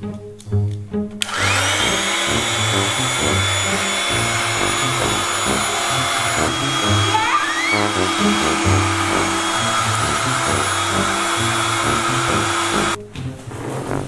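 Small electric air pump running steadily while it inflates an inflatable pool. It switches on about a second in and cuts off suddenly near the end.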